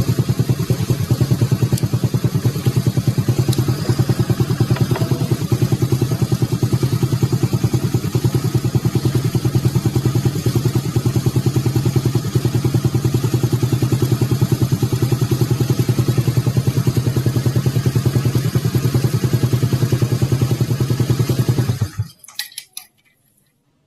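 Honda Supra Fit motorcycle's single-cylinder four-stroke engine running steadily with an even exhaust beat, then switched off near the end, stopping abruptly with a few last faint knocks.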